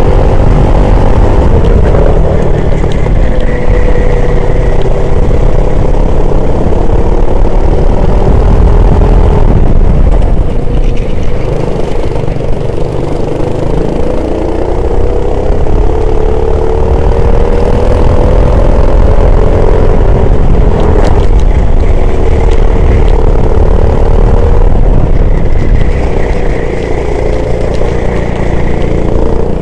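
Racing engine heard onboard at race pace, its pitch climbing and dropping again and again as it accelerates and slows through corners, over a heavy low rumble.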